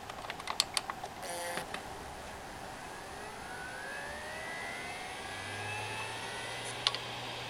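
Western Digital WD2500YS 7200 rpm SATA hard drive spinning up: a few clicks, then a rising whine as the platters come up to speed, settling into a steady low hum about five seconds in, with a sharp click near the end. The uploader says this drive is no longer very healthy.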